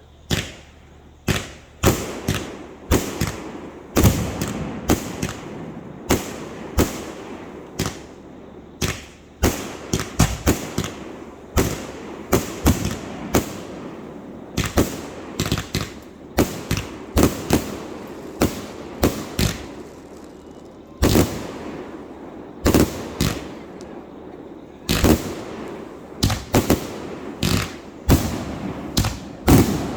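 Fireworks going off in quick, irregular succession: dozens of sharp bangs, often several within a second, with a rumbling echo between them. There is a short lull about two-thirds of the way through, then the bangs start again.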